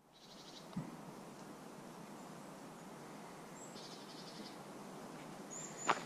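Quiet forest ambience with a single low thud about a second in, which fits the distant bangs that the walker points out in this forest. A short high, pulsing trill from a small bird or insect comes twice, and there is a sharp click of a step near the end.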